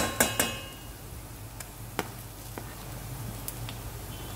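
Metal spoon knocking on a steel pan three times in quick succession at the start, with a brief metallic ring, then a few faint taps as ginger-garlic paste is spooned into the onions.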